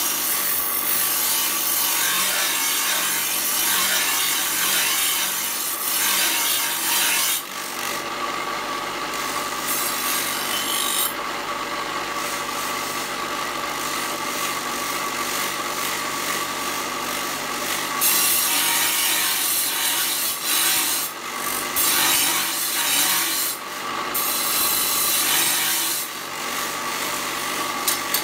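Electric bench grinder and handheld angle grinder grinding steel knife blades: a continuous harsh hiss over a steady motor whine. The brightest, hissiest grinding drops away about seven seconds in and comes back for a stretch in the second half.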